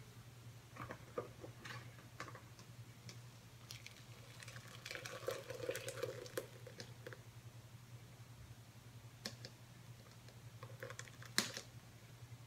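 Thick flaxseed gel being poured from a pot into a handheld mesh strainer over a plastic bowl. The pouring is quiet, with a busier stretch about halfway through, and scattered light clicks and knocks of the pot and strainer. A single sharp click near the end is the loudest sound.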